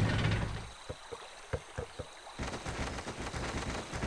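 A low steady hum that fades out within the first second, then light footsteps: a few separate taps, followed by a quicker faint patter of steps.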